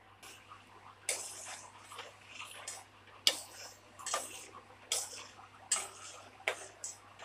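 Metal spoon stirring jaggery dissolving in water in a stainless steel pot, clinking and scraping against the pot wall about once a second, with the liquid swishing between strokes. The stirring starts about a second in.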